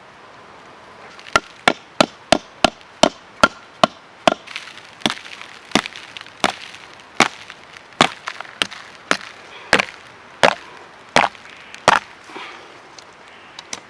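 A run of sharp chopping strikes on wood. They come quickly at first, about three a second, then slow to a steadier stroke about every two-thirds of a second.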